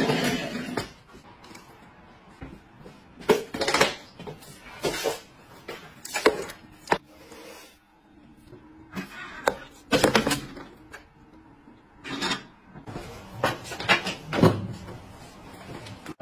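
Household items being handled: a string of short knocks, clatters and scrapes, bunched in small clusters a second or two apart.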